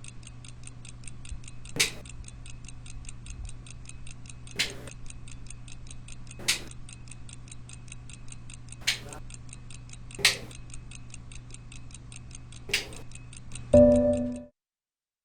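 Clock ticking fast and evenly over a steady low hum, with louder sharp clicks every two seconds or so. Near the end a short, loud tonal sound breaks in and cuts off suddenly to silence.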